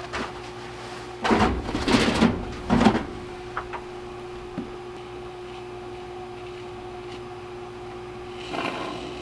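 Expanding spray foam for gaps and cracks being dispensed from its can in short sputtering hisses, two about a second in and a brief one near the end, over a steady hum.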